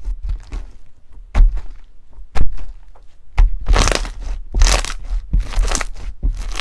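Slime being pressed and worked by hand: three sharp pops about a second apart, then three longer crackly squishes.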